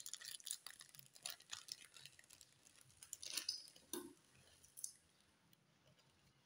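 Plastic instant-noodle packet crinkling and rustling in the hands, with small clicks, and a soft thump about four seconds in as the dry noodle block drops into the rice cooker's pot of hot water. Quiet after about five seconds.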